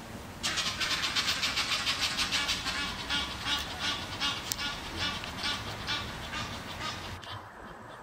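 Egyptian geese giving a rapid run of harsh, raspy honks during a squabble. The run starts suddenly and is loudest at first, then fades over several seconds.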